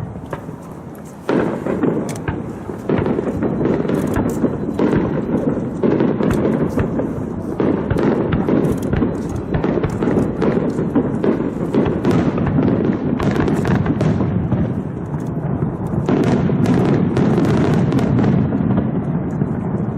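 Fireworks display: a dense, unbroken run of booms and crackling bangs, growing louder about a second in.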